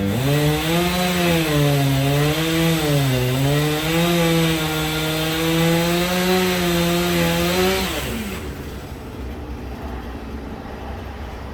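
Chainsaw on a homemade chainsaw mill running under load as it rips through a walnut log, its pitch dipping and recovering with the cut. About eight seconds in, the throttle is released and the engine note falls away abruptly, leaving a lower, quieter rumble.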